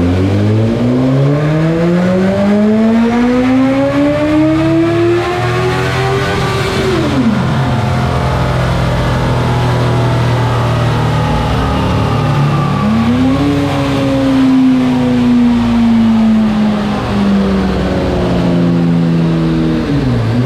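Suzuki GSX-S1000's inline-four engine, breathing through an aftermarket slip-on and mid-pipe exhaust, revving steadily higher in a wide-open dyno pull. The throttle shuts about seven seconds in and the revs drop to a steady low run. A second, shorter rise comes a little past halfway, then the revs slowly wind down.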